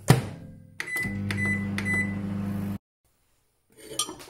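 Microwave oven door knocked shut, three short keypad beeps, then the oven's steady hum as it heats a jug of soft-plastic lure mix, cutting off suddenly. Near the end the door is clicked open again.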